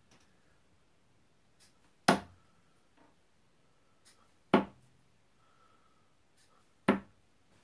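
Three darts striking a Winmau bristle dartboard hung on a door, one sharp thud each, about two and a half seconds apart.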